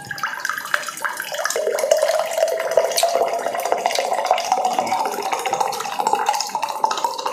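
Water poured steadily from a pitcher into a glass tumbler, the pouring tone rising slowly in pitch as the glass fills.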